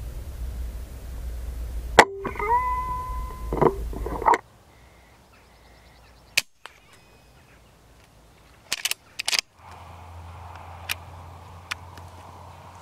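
A single shot from a .22 pre-charged pneumatic air rifle, a sharp crack about two seconds in, followed by a held ringing tone for about two seconds. Later come a few sharp clicks of the rifle being handled.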